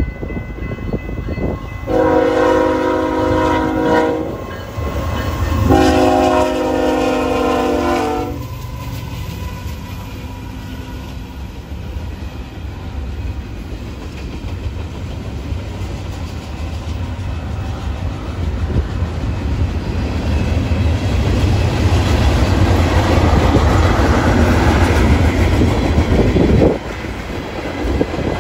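Diesel freight locomotive's air horn sounding two long blasts, a chord of several steady tones, as the train approaches a grade crossing. The rumble of the BNSF manifest train's locomotives and freight cars rolling past follows, with wheels clacking on the rails; it swells and then drops off suddenly near the end.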